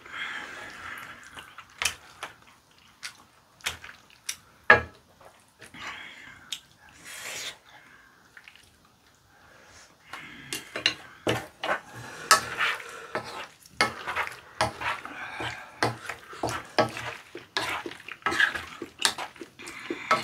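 Eating at the table: chopsticks and a wooden spatula clicking and clinking against a frying pan and plates, with chewing and slurping of rabokki noodles and rice cakes. One sharp clink stands out a little before five seconds in. From about halfway, the clicking and eating noises come thick and fast.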